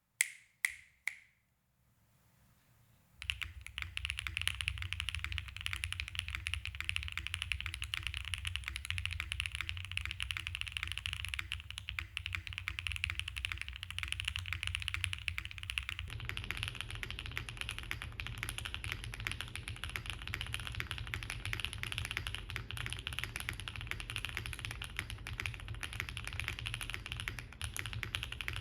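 Three finger snaps, then continuous fast typing on a QK65 V1 gasket-mounted mechanical keyboard with stock Gateron Smoothie switches, a POM plate, case and plate foam, and GMK keycaps: a dense patter of keystrokes. About halfway through, the sound takes on a different colour as the recording switches from a dynamic microphone to an iPhone's microphone.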